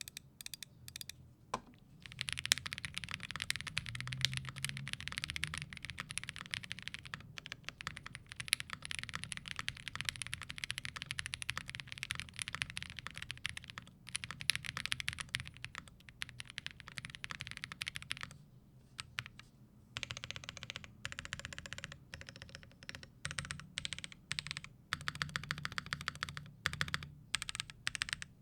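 Typing test on a Womier RD75 75% mechanical keyboard with Vertex V1 switches and GMK Norse keycaps, built on a filled FR4 plate and FlexCut PCB without its IXP foam and PET switch films. A few single keystrokes, then fast continuous typing from about two seconds in, with a short pause about two-thirds through before more quick bursts.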